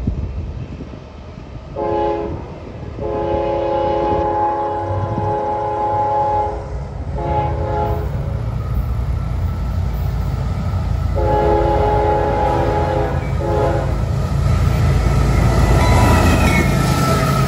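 Multi-note air horn of an approaching CSX freight locomotive, sounded in a series of long and short blasts. Beneath it the diesel engines' rumble and the wheel noise grow, loudest near the end as the locomotives pass close by.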